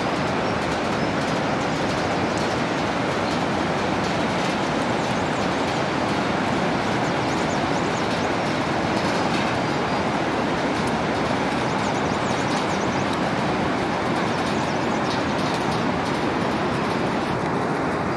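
Mountain river rushing over rocks, a steady unbroken rush of white water.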